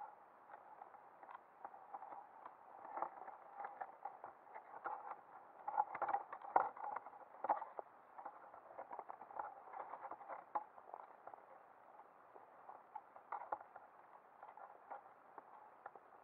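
Underwater clicking and crackling picked up by a submerged camera: irregular short ticks, thickest around the middle, over a faint steady hum.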